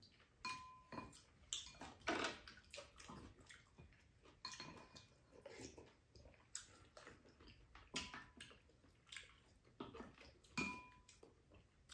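Soft sounds of two people eating: metal spoons and chopsticks tapping and scraping ceramic bowls, with slurping and chewing. A few of the taps are clinks that ring briefly, one near the start and one near the end.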